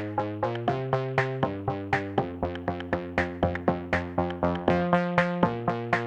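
Background music: an upbeat electronic track of quick, evenly spaced plucked synthesizer notes, about four to five a second, over held chords.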